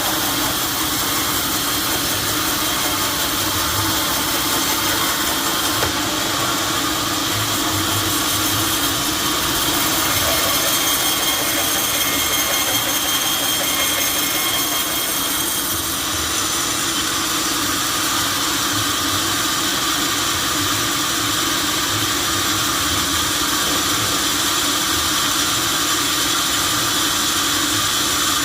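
Sawmill machinery running steadily, a constant loud mechanical noise with no pauses.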